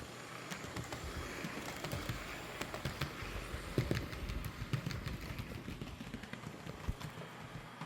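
Piko HO-scale Class 442 EMU model train running in on the layout track: very quiet, a faint steady rolling with scattered light clicks from the wheels on the track.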